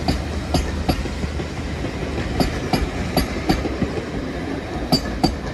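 Steam-hauled passenger coaches rolling past on jointed track: the wheels click over the rail joints in quick pairs over a steady low rumble.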